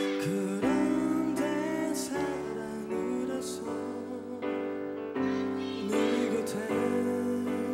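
Live pop ballad: sustained piano and keyboard chords under a high male lead vocal that bends and holds notes with vibrato.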